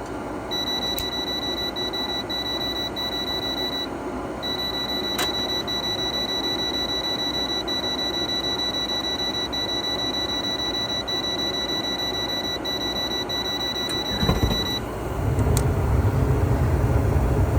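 A voltage tester held on the furnace igniter's wiring beeps in one steady high tone, with a short break about 4 s in, showing the control board is sending the igniter its 120 volts while the igniter stays dark: the igniter is burned out. The beep stops about 15 s in and a low rumble starts.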